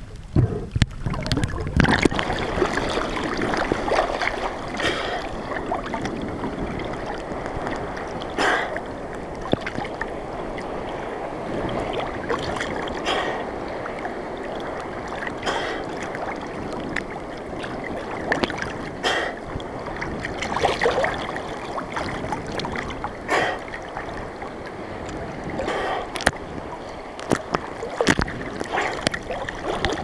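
Seawater sloshing and splashing at the surface around a camera in a waterproof housing, heard as a continuous rushing wash. Sharper splashes come every two to three seconds.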